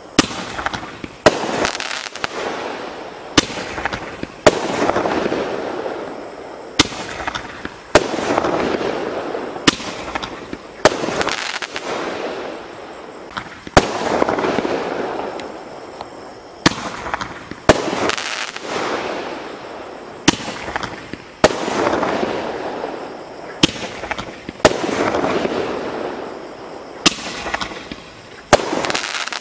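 Golden Tiger Hot 5 Dum Dum 5-shot roman candles firing shot after shot. There is a sharp pop about every one to one and a half seconds, with a rushing hiss that swells and fades between shots.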